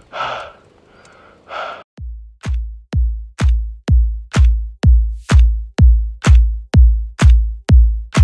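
Electronic dance music's kick drum comes in about two seconds in: a steady deep beat with a click on top, about two beats a second. Before it there are a few short bursts of noise.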